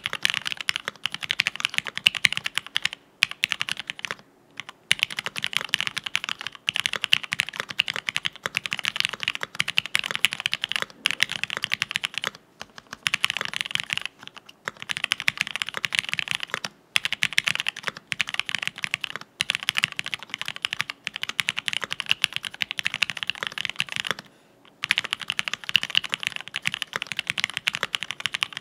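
Typing on a TX65 PC polycarbonate-case keyboard with lubed Gateron Cream linear switches on an FR4 plate and PBT keycaps: a fast, dense run of keystrokes broken by a few short pauses, the longest near the end.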